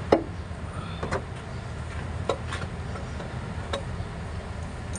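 Metal clunks and clicks as a replacement A/C compressor is worked into its mounting bracket on a truck engine: one sharp knock at the start, then several lighter clicks over the next few seconds, over a low steady hum.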